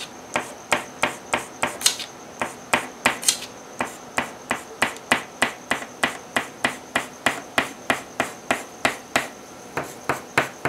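A rapid, fairly regular series of sharp taps or clicks, about four a second, with a few brief gaps.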